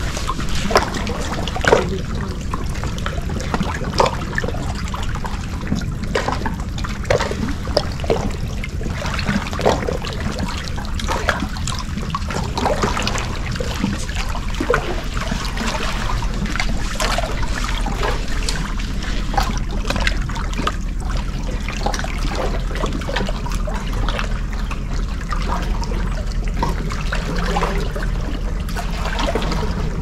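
Small sea waves lapping and gurgling among shoreline rocks, with many irregular little splashes and trickles over a steady low rumble.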